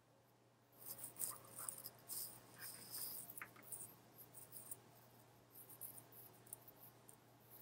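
Faint, irregular scratching and rustling close to the microphone, starting about a second in, over a steady low electrical hum.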